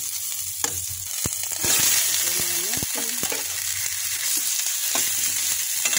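Garlic, ginger and onion sizzling in hot oil in a stainless steel pot, with a metal spoon knocking and scraping against the pot. About two seconds in, the sizzle gets louder as raw chicken pieces go into the pot.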